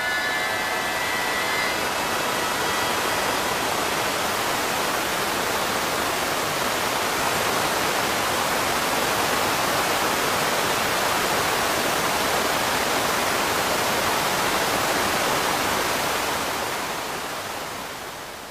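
Waterfall: a steady, dense rush of falling water that fades out over the last couple of seconds.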